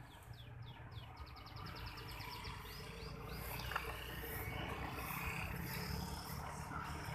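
Small birds chirping in quick repeated calls that run into a fast trill, over a steady low rumble of motorbike traffic that grows louder in the second half.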